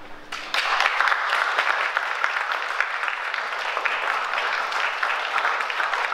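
A solo violin's last held note dies away at the very start, then the audience breaks into steady applause about half a second in.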